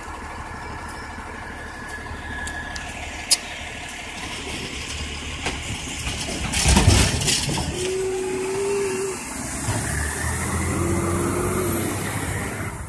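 Automated side-loader garbage truck at work: the diesel engine runs with the hydraulic lift arm, with a loud clatter about halfway through as the arm handles the trash cart, followed by two short whining tones.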